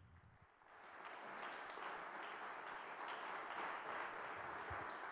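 Audience applauding: the clapping starts under a second in and quickly builds to a steady round of applause.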